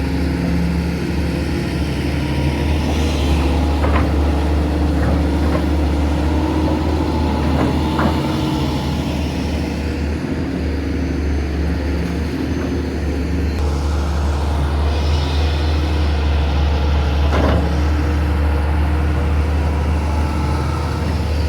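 Hydraulic excavator's diesel engine running steadily at a low, even pitch, with a few short sharp knocks about four, eight and seventeen seconds in.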